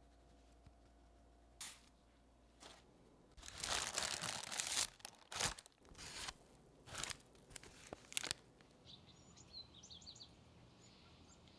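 A series of short crinkling, tearing handling noises in irregular bursts, followed by a few faint high bird chirps near the end.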